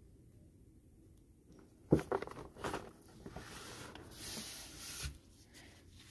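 Clear plastic helmet display case set down on a table with a sharp knock, followed by rustling and sliding of nitrile-gloved hands over the case and tabletop, and a soft thump near the end.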